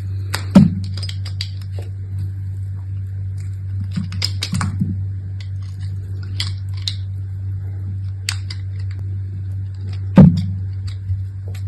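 Hands unpacking soap: scattered clicks and rustles of packaging being handled, with two louder knocks, about half a second in and about ten seconds in, as something is set down or opened. A steady low hum runs underneath.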